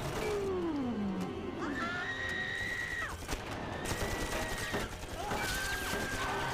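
Film action soundtrack: bursts of automatic-rifle fire and crashes over dramatic music, with a falling cry in the first second. From about two seconds in come three long, high screams from a woman.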